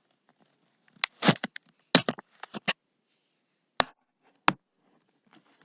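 A series of short knocks and clicks from objects being handled, with a cluster about two seconds in and two sharp single knocks later on.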